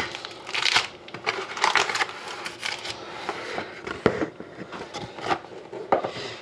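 Foil-wrapped trading card packs rustling and crinkling in the hands as they are taken out of the box and stacked on a desk, with two sharp knocks in the second half.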